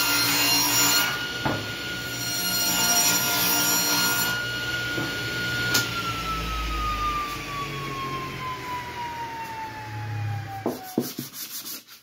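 Table saw running through a 3/4-inch plywood panel. About halfway through it is switched off with a click, and the blade's whine falls steadily in pitch as it winds down over about five seconds, ending with a couple of knocks.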